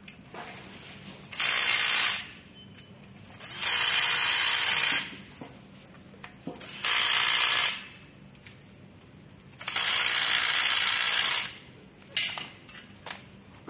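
Cordless drill/driver running in four short bursts of about a second or more each, backing out the screws that hold a motor bracket to a metal base plate, followed by a few light clicks near the end.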